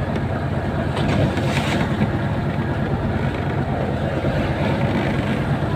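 A fishing boat's engine running steadily, with brief splashing of water and fish between one and two seconds in as the catch is scooped out of the net.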